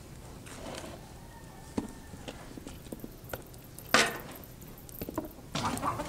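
A large metal cooking pot handled on dirt ground: a few light knocks and scrapes, with one sharp clank about four seconds in. A hen begins clucking near the end.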